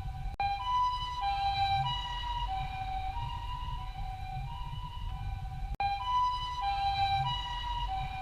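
Japanese ambulance siren sounding its two-tone "pee-po" call, a high and a low note alternating about every half second, over a low rumble. The sound cuts out abruptly for an instant about half a second in and again about six seconds in.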